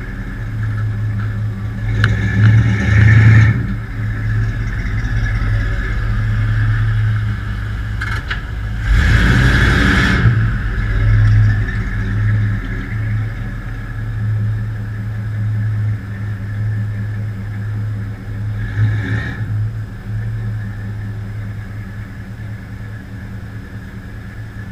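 A motor-vehicle engine runs steadily at a low, even note and surges briefly three times, about two, nine and nineteen seconds in.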